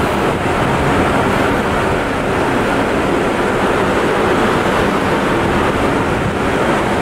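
Loud, steady rushing noise of machinery on a cruise ship's open top deck, said to be so loud because of a water cleaner.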